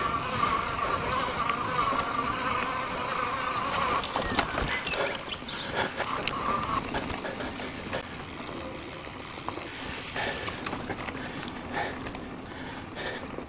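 E-bike motor whining steadily while riding over a dirt trail. The whine drops away about four seconds in and is gone by about seven seconds. Scattered rattles and knocks from the bike on rough ground run throughout.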